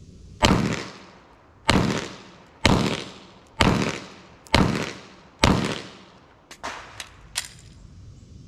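Semi-automatic pistol fired six times, about one shot a second, each shot sharp and loud with a short decaying tail. A few seconds later come three much quieter sharp clicks, the metallic sounds of the magazine change in a six-round, reload, six-round string.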